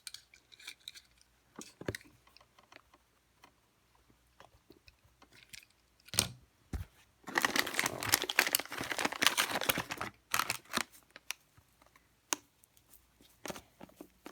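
Hands handling and working things at close range: scattered clicks and taps, with about three seconds of dense crinkly rustling and crunching in the middle.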